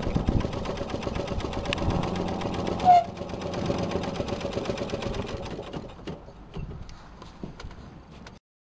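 Vintage single-cylinder St. Lawrence marine engine putt-putting, then being shut off: after a short sharp sound about three seconds in, the beats slow, spread out and fade as the engine runs down to a stop near the end.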